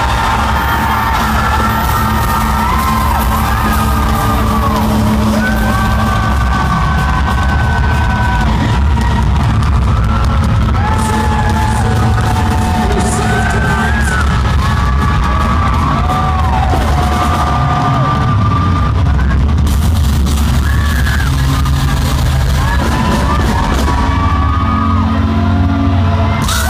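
Heavy metal band playing live at arena volume through the PA: drums, bass and guitars, with held, bending melodic lines over a heavy low end.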